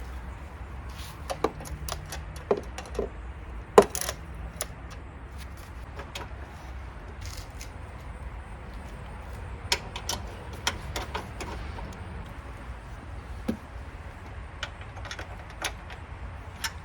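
Scattered metal clinks and knocks of tools and hardware while a new car battery is being fitted and secured, with one sharp knock about four seconds in, over a low steady hum.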